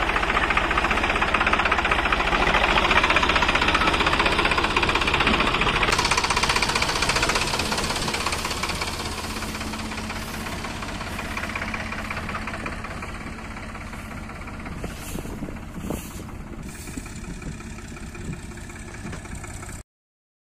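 Sonalika DI 42 RX tractor's 42 HP diesel engine running steadily with a clattering knock, louder for the first several seconds and easing off from about eight seconds in, then cutting off suddenly near the end.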